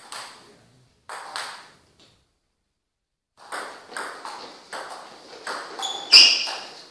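Table tennis ball clicking: a couple of sharp taps, a pause, then from about halfway a rally of quick ball-on-bat and ball-on-table hits about two a second. Near the end comes a brief high-pitched squeak, the loudest moment.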